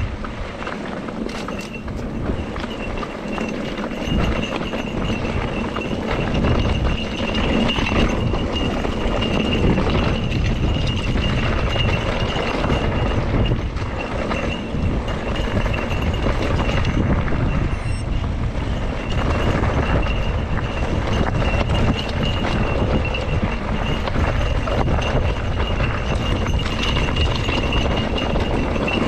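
Mountain bike rolling over a loose rocky gravel trail: tyres crunching on stones and the bike rattling over bumps, with a low wind rumble and a thin steady high whine throughout.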